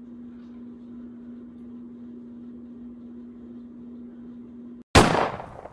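A steady low electrical hum with faint hiss, then a single loud gunshot sound effect about five seconds in, fading out over about half a second.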